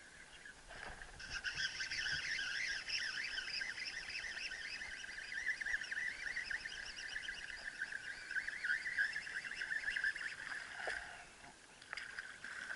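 Birds calling continuously in a loud, rapid warbling chorus that stops shortly before the end. A short water splash follows as a fish hits the topwater lure beside the kayak.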